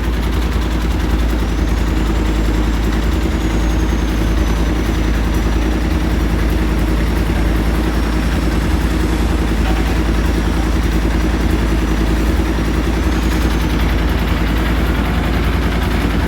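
Diesel engine of construction machinery running steadily at a constant speed, with a faint high whine above it.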